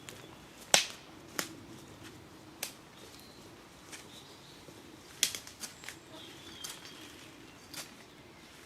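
Scattered sharp cracks and snaps of dry twigs and sticks in woodland, about seven over several seconds, the loudest about a second in, with faint bird chirps between them.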